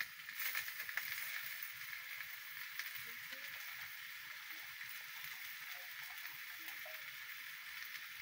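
Green vegetables sizzling in a wok over a wood fire: a steady hiss with light crackling, a little louder in the first second or so.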